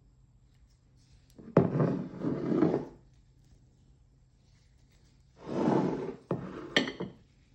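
Two spells of kitchen utensil and dish handling: a sharp knock followed by about a second and a half of scraping, then after a pause another spell of scraping that ends in a few quick clinks.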